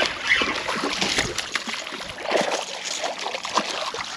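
Water splashing and sloshing irregularly as a hooked fish thrashes at the surface in shallow water during the fight.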